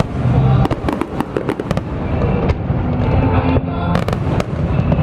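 Aerial fireworks bursting in a barrage of sharp bangs and crackles over a continuous low rumble, with a dense cluster of reports from about half a second in and another around four seconds in.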